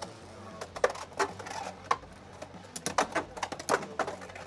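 Two Beyblade X spinning tops battling in a clear plastic stadium: a run of sharp, irregular clacks as they collide with each other and strike the stadium walls, loudest about a second in and again around three seconds in.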